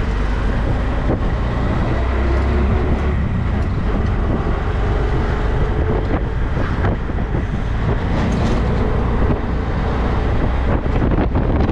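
A vehicle's engine running as it drives along, with wind buffeting the microphone.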